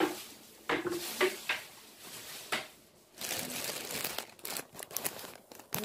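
Flat-pack table panels and their packaging being handled: crinkling and rustling with scattered knocks, then a denser run of close rustling and clicks from about three seconds in.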